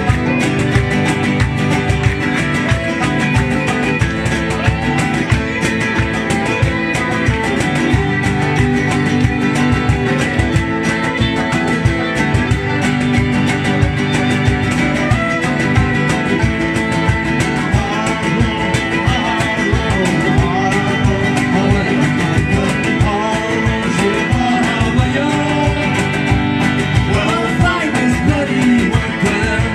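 Acoustic folk band playing an instrumental passage: fiddle and flute carrying the tune over banjo and acoustic guitars strummed to a steady beat.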